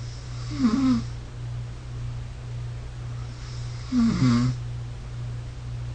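A person snoring on a night-time sleep recording played back from a phone app: two snores, about three and a half seconds apart, over a steady low hum.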